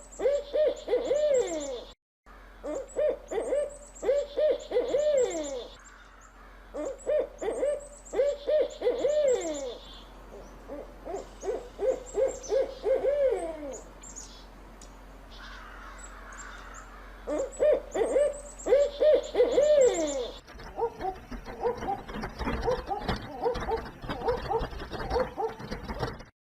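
An owl hooting in quick clusters of three or four short, arched notes, each cluster repeating about every two seconds. Near the end the calls become denser and overlapping.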